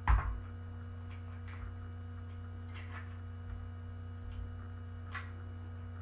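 An egg knocked once against a stainless steel mixing bowl to crack it, followed by a few faint ticks as the shell is pulled apart, over a steady electrical hum.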